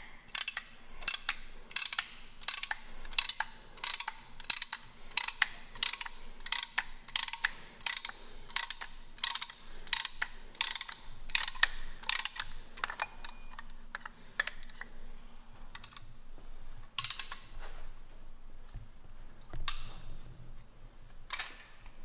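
Ratchet clicking in even strokes, about three every two seconds, as the front brake caliper piston is pressed back into its bore. The strokes stop about twelve seconds in, and only a few single clicks follow.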